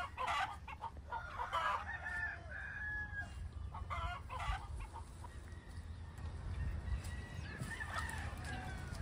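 Chickens clucking, with a rooster crowing, in several bouts of calls over a low steady hum.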